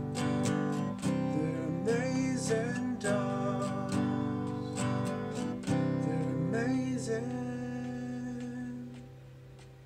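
Acoustic guitar strummed with a man singing along. A last strum a little past halfway rings out and fades away as the song ends.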